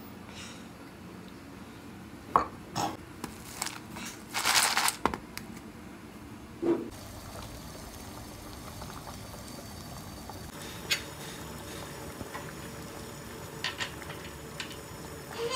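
A few knocks and clinks of kitchen bowls in the first half, then, after a cut, a pot of water boiling on a gas stove: a steady bubbling.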